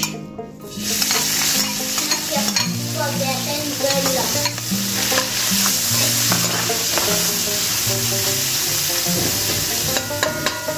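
Shredded saltfish sizzling as it fries in a hot pot, the hiss building about a second in and then holding steady. A few sharp clicks fall on top of it.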